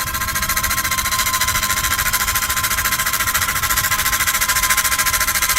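Small electric motor of a homemade toy helicopter running its rotor at speed: a steady buzz with a fast, even pulse and a steady whine, cutting off suddenly at the end.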